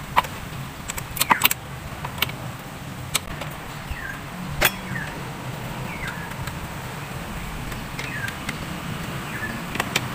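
Scattered sharp clicks and taps of hands and tools working on a car engine's air filter housing and intake hose. A bird gives short falling chirps every second or so, over a steady low hum.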